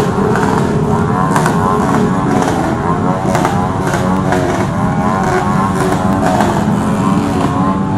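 Dense crowd of motorcycles on a jammed street, many engines running and revving at once in a steady din, with short sharp cracks every second or two.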